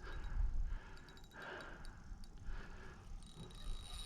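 A person breathing out heavily while a fish is played on a light spinning rod, with a few faint ticks from the fishing reel and low wind rumble on the microphone. A steady high whine starts shortly before the end.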